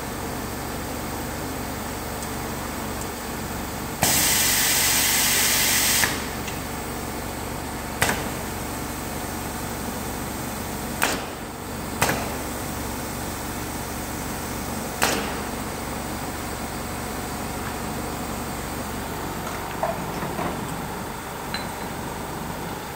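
Pneumatic bottle filling and capping machine working over a steady mechanical hum. About four seconds in, compressed air hisses loudly for two seconds. Then four sharp clacks of the pneumatic cylinders and valves follow over the next ten seconds.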